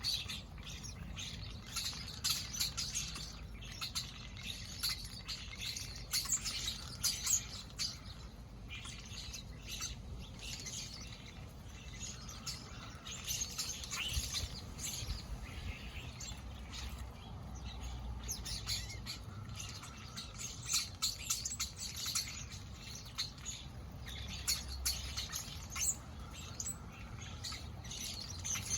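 Blackbirds and other backyard birds chirping without pause: many short, overlapping chirps, over a low steady rumble.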